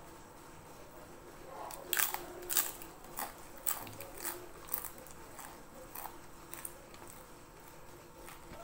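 Crunching of a crisp fried cracker as it is bitten and chewed: a run of sharp crunches, about two a second, starting about two seconds in and thinning out after about five seconds.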